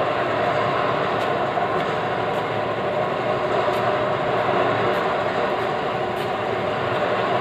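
A 42-inch, 100 HP impact pulveriser (sawdust grinder) running, a steady loud mechanical noise.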